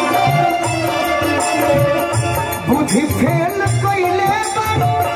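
Folk-style dance music with a steady, regular drum beat under a sustained melody line.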